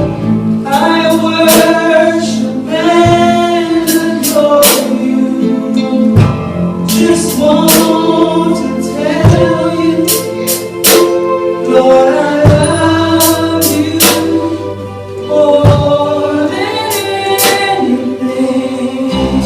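Gospel worship song: several voices singing held notes over a band with a bass line and regular percussion hits.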